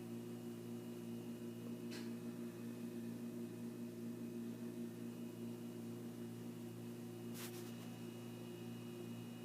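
A steady low electrical hum with faint hiss, broken by two brief faint clicks, one about two seconds in and one near the end.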